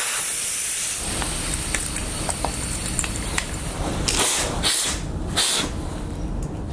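Air hissing out of a motorcycle's front tyre valve: a hiss at the start, then three short bursts near the end as the valve is pressed, with the tyre being let down before it is pumped back up. A steady low rumble runs underneath.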